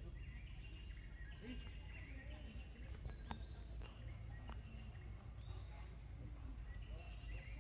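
Faint outdoor ambience: a steady high insect drone with scattered bird chirps, and a single sharp click a little over three seconds in.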